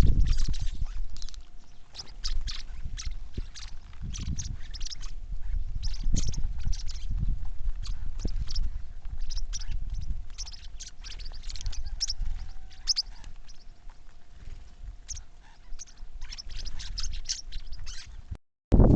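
Small birds chirping: many short, high chirps overlapping throughout, over a low rumble and a faint steady hum. The sound cuts out briefly just before the end.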